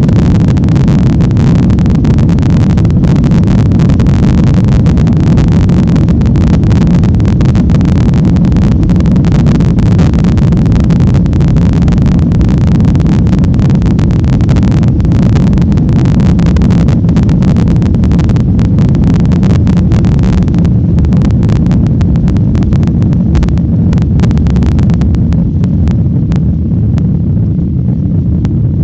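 Steady loud roar of an airliner's engines and rushing air, heard from inside the cabin during takeoff, with a fine crackle running through it. Near the end the hiss thins out, leaving a low rumble.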